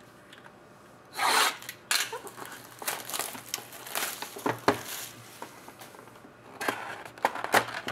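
A sealed trading-card box being opened: packaging rubbing and rustling, with a louder burst of tearing about a second in and a few sharp clicks.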